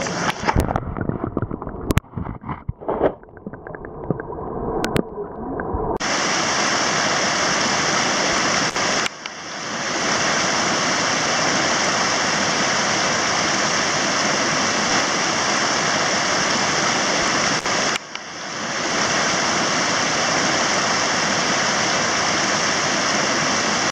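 Rushing mountain torrent. For the first few seconds it is muffled and choppy, with a few knocks, as the camera is held close to the water. After that it is a steady, loud rush of white water, which dips briefly twice and swells back.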